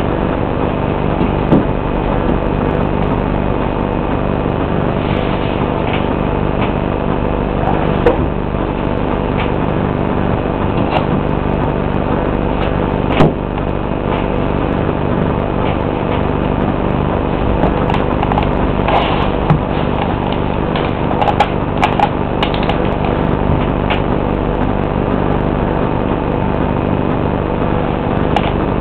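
A steady hum of many even tones runs throughout. Over it come a few short sharp knocks, the loudest about thirteen seconds in, as Bloch pointe shoes with their hard boxes tap down on a hard floor while the dancer rises on and off pointe.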